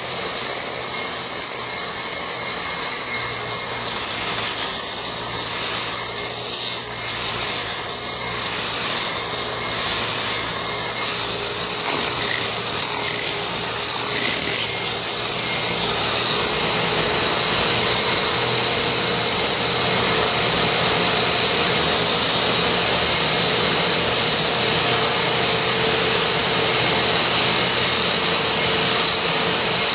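DeWalt concrete grinder, an angle grinder with a diamond wheel under a dust shroud, running steadily as it grinds down lumps in a concrete floor, with a shop vacuum drawing the dust away through the shroud. The sound grows a little louder after about the middle.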